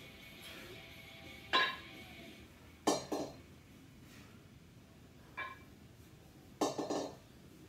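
Two 8 kg kettlebells clinking metal on metal during double half-snatch reps: about four sharp clinks, some doubled, each with a brief ring.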